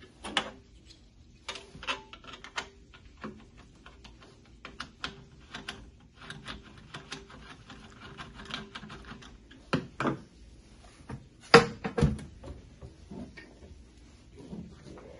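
Screwdriver work on a stainless steel waffle maker frame: irregular clicks and small metallic knocks of the tool and screws against the sheet metal, with a few louder metal clanks about two-thirds through as the steel parts are handled.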